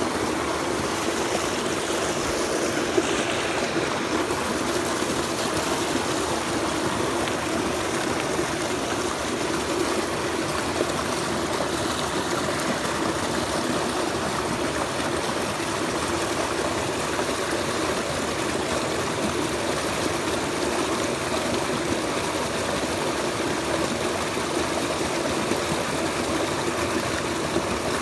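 Mountain stream water running steadily over rocks, a constant rushing and trickling.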